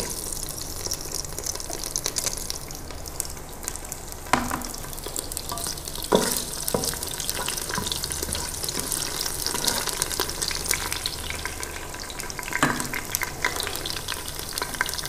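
Whole spices (cinnamon, star anise, cloves, cardamom) sizzling with fine crackles in hot oil in an electric pressure cooker's inner pot on stir-fry mode at 160 °C. A spatula stirs them, knocking against the pot three times.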